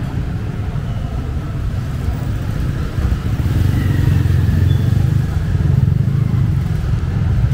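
Street traffic: a vehicle engine running close by with a steady low rumble, growing louder about three seconds in.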